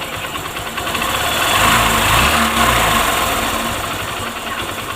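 Honda Shine single-cylinder motorcycle engine running, blipped briefly to higher revs in the middle and settling back to idle. The timing chain's intermittent clatter is gone: the new automatic chain tensioner is taking up the slack.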